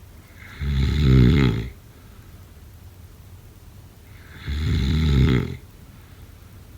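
A person snoring: two snores about four seconds apart, each lasting about a second, with a low, rattling drone.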